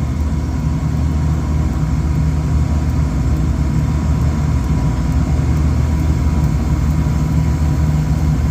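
Trane rooftop packaged air-conditioning unit running: a steady low hum and rush of air from its fan motors, with a faint steady high tone above it.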